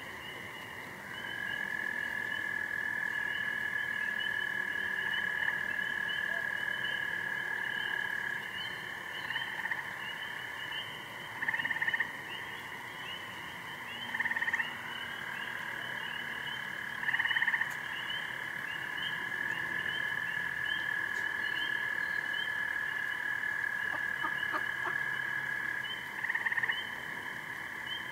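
Night frog chorus from a swamp: many short high chirps overlapping throughout, two long steady trills, and several short louder calls breaking in.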